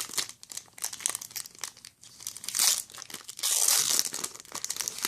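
Foil trading-card booster pack crinkling and being torn open by hand, with loud crackly bursts about two and a half and three and a half seconds in.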